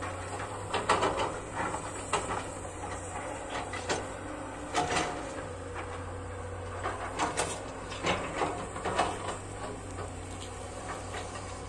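Hydraulic excavators working peat soil: a steady low engine drone with irregular clanks and knocks from the machines.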